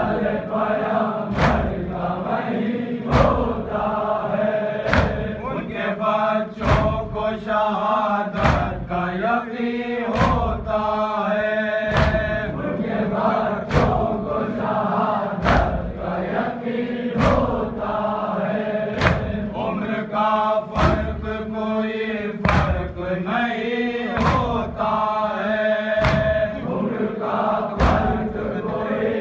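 Voices chanting a noha, a Shia lament, marked by sharp regular strikes about every second and three-quarters, typical of the chest-beating (matam) that keeps time in a noha.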